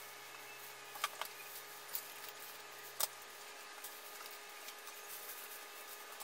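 A few faint, isolated clicks and taps over a quiet room background as a sequin backdrop is handled and fastened to a wall from a stepladder.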